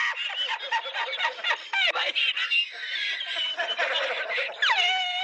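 A person laughing in quick, broken bursts. Near the end a loud voice slides down in pitch into a long held wail.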